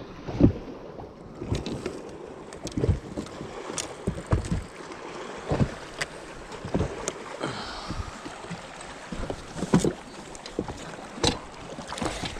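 Irregular knocks and thumps on a fiberglass bass boat's carpeted front deck as fishing rods and gear are handled, over a faint steady background noise. Near the end come clunks from the bow-mount trolling motor being pulled up and stowed.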